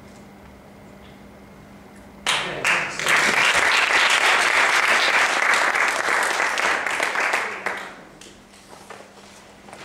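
Audience applauding: a burst of clapping that starts about two seconds in, holds for about five seconds and dies away near the end.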